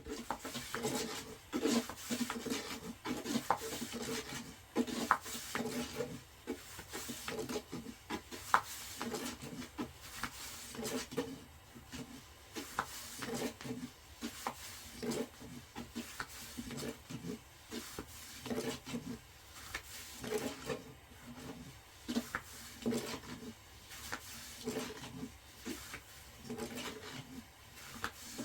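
Rhythmic rubbing strokes, repeating a little under two a second.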